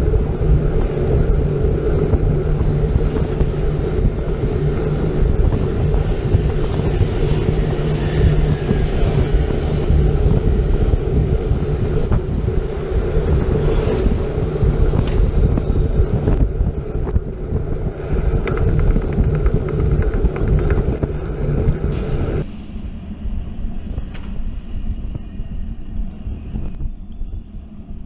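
Wind buffeting a moving camera's microphone over the rumble of city traffic, with vans and double-decker buses passing close. About 22 seconds in, the sound abruptly turns quieter and duller.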